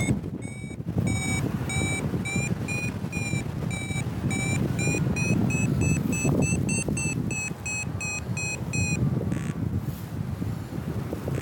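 A paragliding variometer beeping in a quick run of short, evenly spaced beeps that creep up in pitch and speed up through the middle, signalling a climb in rising air. It stops a second or two before the end. Wind rumbles on the microphone underneath.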